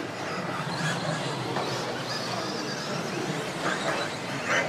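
Electric RC stadium trucks racing on a dirt track: a steady mix of small electric motors whining and tyres running on dirt, with voices in the background.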